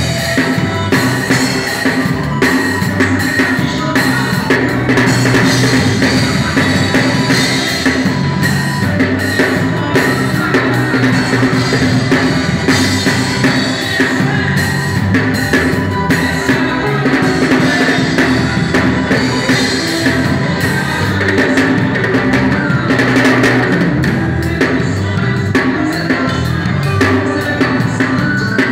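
Live band music driven by an acoustic drum kit, with bass drum, snare and cymbals played continuously over electric and acoustic guitars and keyboard. The drummer is improvising fills.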